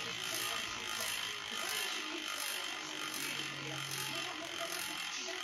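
Freehub of a Scribe DUTY-D rear wheel buzzing steadily as the wheel spins freely, its rapid ratcheting clicks running together into one even buzz.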